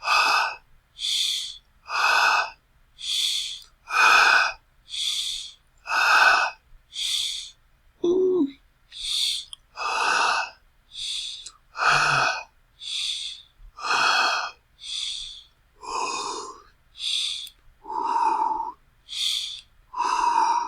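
A person panting hard and out of breath: loud breaths in and out, about one a second. There is a short voiced catch about eight seconds in, and near the end some of the breaths carry a breathy voiced tone.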